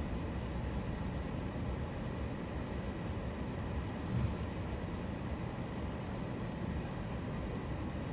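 Steady low road and engine rumble of a car driving, heard from inside the cabin, with a brief thump a little after four seconds in.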